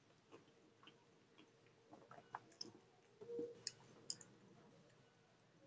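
Near silence with faint, scattered wet mouth clicks from chewing the last mouthful of rice, and one brief, slightly louder low sound about three seconds in.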